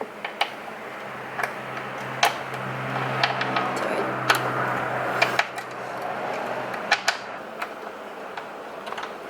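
Irregular metallic clicks and taps of hand tools and fittings being worked while a braided steel brake line is fitted, over a low steady hum.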